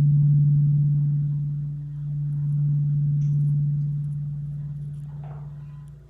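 Quartz crystal singing bowl sounding one steady low hum that swells and fades in slow waves, then dips near the end.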